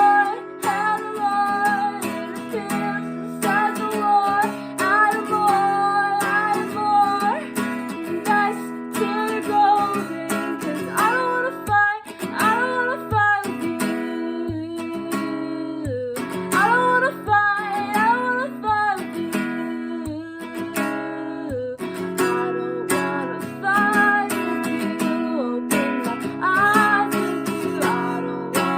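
Acoustic guitar strummed steadily as accompaniment to a woman singing a slow melody.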